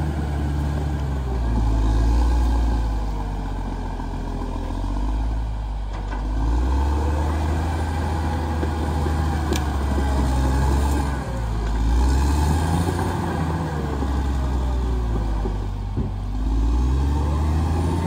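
Caterpillar D6R XL bulldozer's diesel engine working, its pitch and loudness rising and falling in cycles every few seconds as the machine moves and pushes. There is one sharp click about halfway through.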